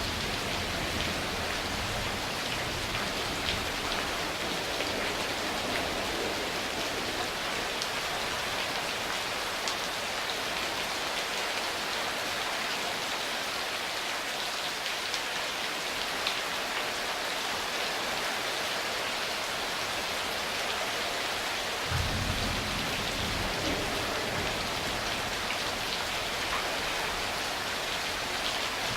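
Steady rain falling, a dense even hiss, with a low rumble of thunder under it at the start that fades away, then rolls in again suddenly about 22 seconds in.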